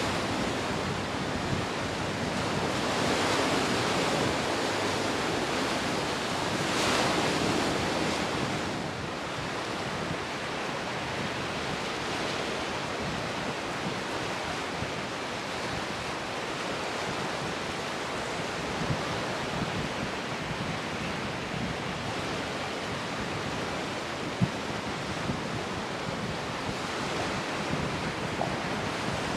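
Rough surf and breaking waves with wind buffeting the microphone, a steady rush that swells twice in the first eight seconds or so.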